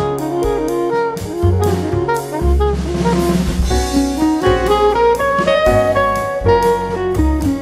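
Instrumental background music: a melody line over bass and a steady drum beat, in a jazz style.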